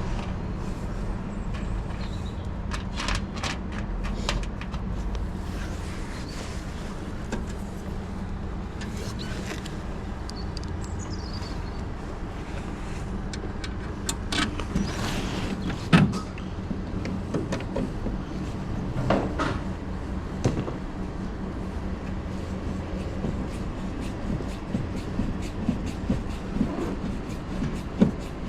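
Scattered clicks and knocks of metal parts and screws being handled and fitted during air conditioner reassembly, the sharpest knock about halfway through, over a steady low mechanical hum.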